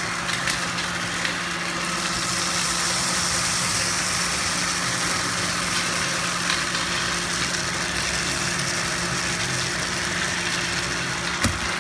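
Cyclone vacuum cleaner running steadily: a constant motor hum under an airy hiss, with a few faint short ticks.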